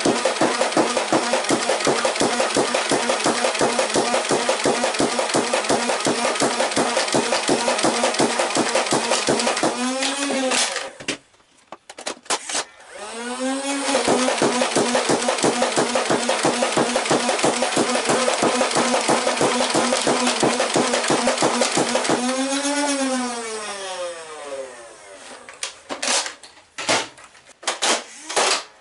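Nerf N-Strike Elite Infinus flywheel blaster firing full auto. The motors whir up and darts fire in a rapid, even stream for about ten seconds before the motors wind down. After a brief pause, a second burst runs for about nine seconds and ends with a long wind-down of the flywheels. A few clicks and knocks follow near the end.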